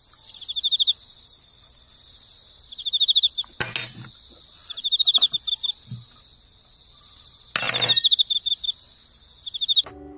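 Crickets chirping in repeated pulsed trills over a steady high ringing, cutting in and out abruptly like an edited-in sound effect. Two short noisy bursts break through, about a third of the way in and again near the end.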